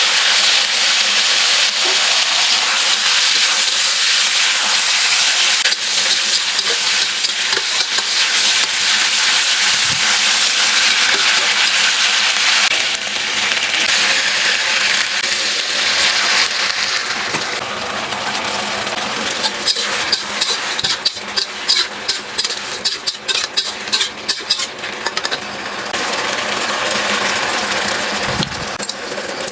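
Food sizzling in a hot pan as it is stir-fried. About halfway through the sizzle eases a little, and a quick run of clicks and scrapes follows as the utensil strikes the pan.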